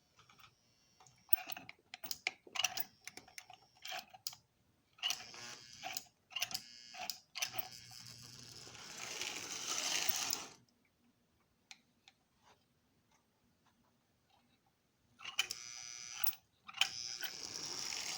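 Lionel 10E locomotive's electric motor and gears running on toy train track, starting and stopping in short spurts. A string of clicks comes first, then a stretch of running that builds to about ten seconds in and cuts off, a near-silent pause, and the motor starts up again near the end.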